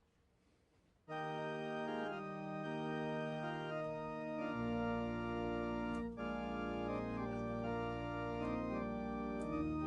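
Organ starts playing held chords about a second in, with deep bass notes joining a few seconds later.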